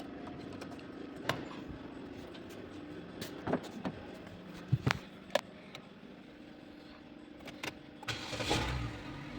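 Several sharp clicks and knocks, then about eight seconds in a car engine cranks briefly, catches and settles into an idle.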